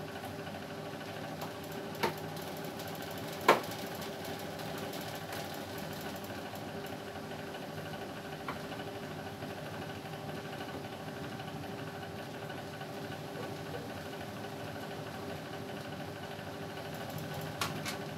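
A few sharp plastic clicks and knocks as hands fit parts back into a wall-mounted split air conditioner's indoor unit, the loudest about three and a half seconds in, over a steady mechanical hum.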